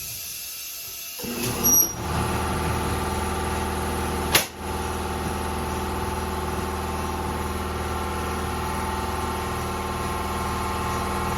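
A 5 hp Briggs & Stratton single-cylinder four-stroke mini bike engine starts about a second in and runs steadily at idle. It dips briefly with a click about four seconds in, then stops right at the end.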